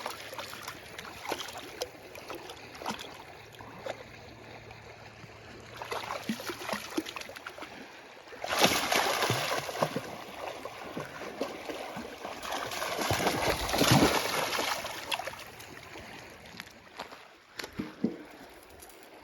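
River water running, with scattered small clicks and two louder stretches of rushing noise, one about halfway through and one about two-thirds through.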